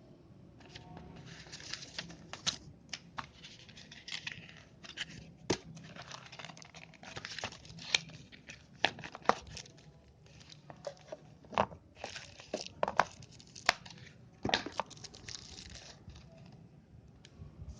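Packaging being torn open and crinkled by hand, with irregular crackling and sharp snaps, for the boxed Logitech MK220 wireless keyboard and mouse set.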